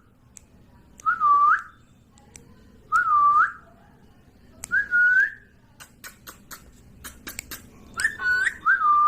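Ring-necked parakeet whistling a short swooping note that dips and then rises, repeated five times at about two-second intervals, the last two close together. In the middle there is a run of sharp clicks.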